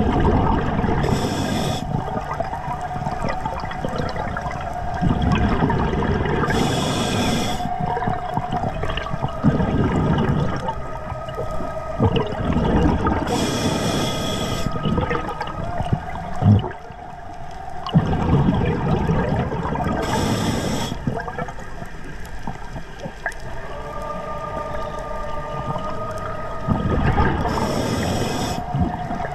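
Scuba regulator breathing underwater: five short hisses of inhalation through the demand valve, about every six or seven seconds, each followed by a low rumble of exhaled bubbles. A steady whine sounds underneath at times.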